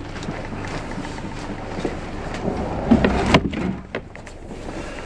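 Steady background rumble inside a passenger railway coach, then a cluster of clunks and one sharp bang a little past halfway as a door is handled. After the bang the background is quieter, with a few light clicks.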